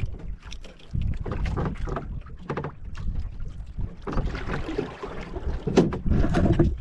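Wind buffeting the microphone and sea water slapping against the hull of a small outrigger boat, with a few sharp knocks. The wash of water noise grows fuller about four seconds in.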